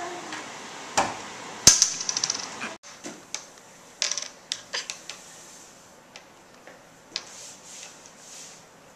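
A metal fork and a plastic bottle cap clicking and tapping against a wooden tabletop as they are handled. There is one sharp knock with a brief metallic ring about two seconds in, followed by lighter scattered ticks.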